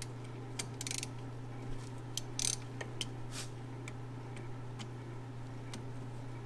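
Ratchet wrench clicking in short, irregular bursts while the brake caliper bolts are loosened, over a steady low hum.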